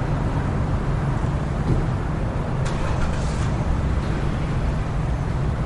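Steady rumble of road traffic from passing buses, auto-rickshaws and motorbikes.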